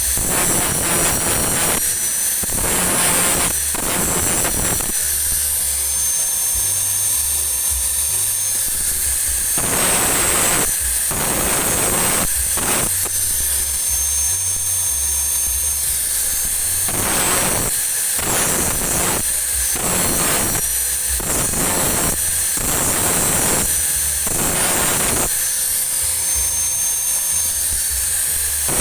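Small electric grinder running steadily with a high whine, repeatedly pressed against the welded teeth of a motorcycle front sprocket shaft in short grinding passes to level the built-up weld.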